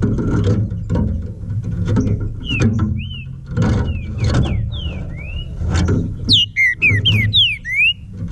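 Green-winged saltator (trinca-ferro) singing a phrase of short, clear slurred whistles, some rising and some falling, with a quick run of high thin chirps near the end. Under it runs a steady low rumble.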